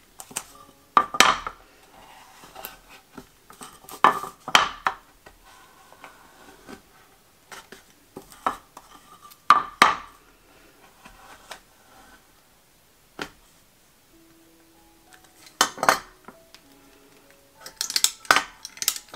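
Utility knife blade scraping along the edges of a glossy tile, cutting through dried acrylic paint skin: scattered short scrapes and clicks a few seconds apart, with a quick cluster near the end.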